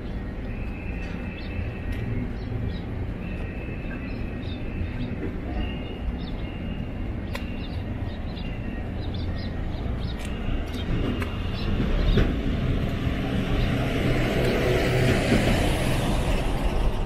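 Street traffic: a steady low rumble with a few faint clicks. About twelve seconds in, a vehicle passes close, building to a loud hiss over the last few seconds.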